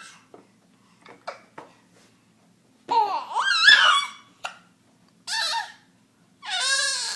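A baby with the hiccups: a few short, sharp hiccups in the first two seconds, then longer wavering vocal sounds, another hiccup, and fussing vocalizing that builds near the end.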